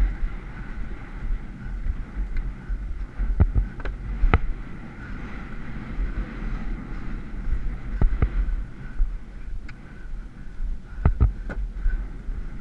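Wind rumbling on a helmet camera's microphone as a horse travels across grass at speed, with scattered sharp knocks, clustered about three to four seconds in, around eight seconds and around eleven seconds.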